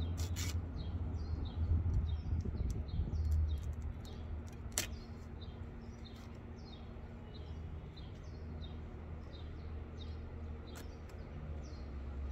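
Small birds chirping over and over, short falling chirps a few times a second, over a steady low rumble. A few sharp clicks come from hand-tool work on an old chair's upholstery, the loudest about five seconds in.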